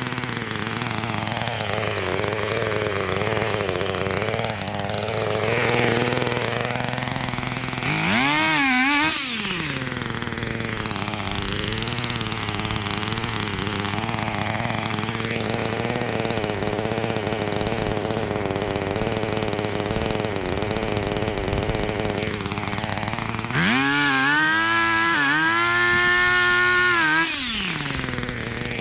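Chainsaw engine idling, revved up briefly about eight seconds in and again for a few seconds near the end.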